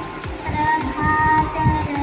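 A schoolgirl singing a Marathi song into a microphone, holding long notes over a backing track with a regular drum beat.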